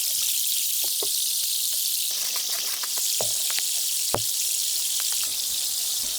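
Wood fire crackling: a steady hiss with scattered sharp pops, the loudest a little past four seconds in.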